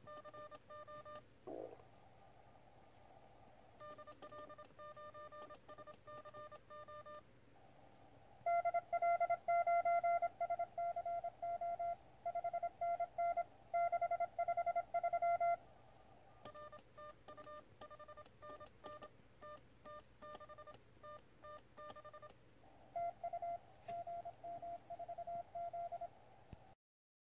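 Morse code (CW) beeps from a QRP Labs QCX+ transceiver's small speaker: dots and dashes at one steady pitch, in several passages with short gaps. A much louder passage runs from about a third of the way in to past the middle.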